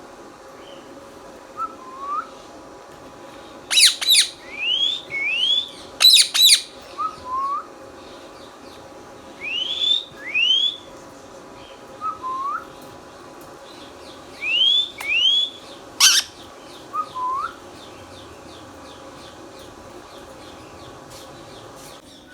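Indian ringneck parakeet giving a few loud, sharp squawks, about four seconds in, about six seconds in and again near sixteen seconds. Between them come short rising whistles that repeat in small groups every few seconds.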